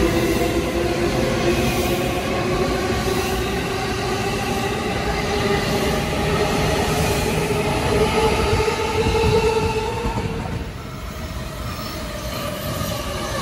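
E217 series electric train pulling out and accelerating: its motors whine in several tones that slowly rise in pitch over the rumble of the wheels, fading about ten seconds in as it leaves. Near the end another train's rumble begins to build as it approaches.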